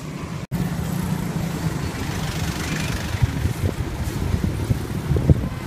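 Motorbike running through city traffic, with a steady low rumble of engine and road noise and wind buffeting the microphone. The sound cuts out for an instant about half a second in.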